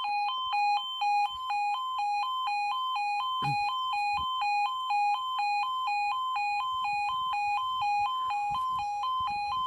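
Level crossing audible warning alarm sounding while a train approaches: an electronic two-tone yodel switching evenly between a lower and a higher pitch, about two and a half times a second.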